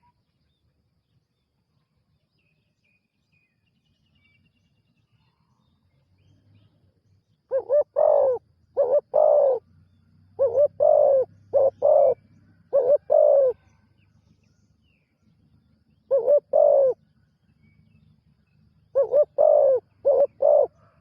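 A spotted dove cooing. After about seven seconds of near silence it calls in repeated short phrases of two to four low coos, with pauses between them.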